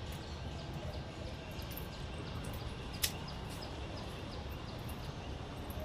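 Faint, scattered chirps over a steady low background hum, with one sharp click about three seconds in.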